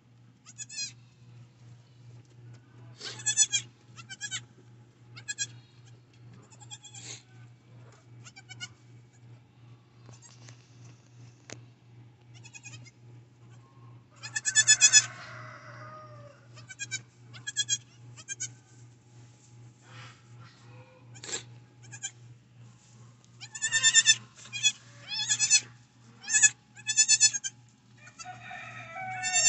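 Newborn Nigerian Dwarf goat kids bleating in short, high calls again and again, with a loud bunch about halfway through and a quick run of calls near the end.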